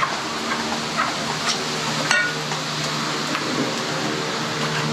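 Light metallic clinks and knocks as slabs of fish are laid on a smoker's steel grate, one clink about two seconds in ringing briefly, over a steady mechanical hum.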